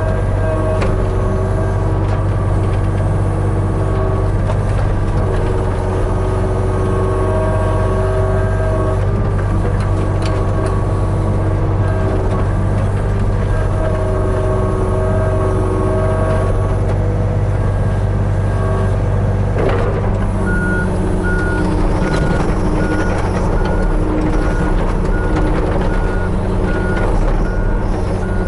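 Hitachi 35U mini excavator working, its engine running steadily under a wavering hydraulic whine. About two-thirds of the way through, a backup alarm starts beeping evenly, a little more than once a second.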